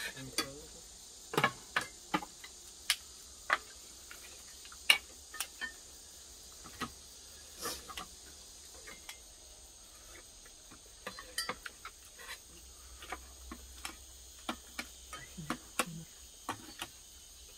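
Scattered sharp clinks and clicks of metal spoons, chopsticks and kitchen scissors against stainless-steel bowls as oxtail meat is cut and eaten, over steady high-pitched insect chirring.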